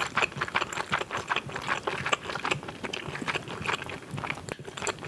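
Close-miked chewing of a bite of grilled cheese fishcake: a steady run of small mouth clicks, several a second.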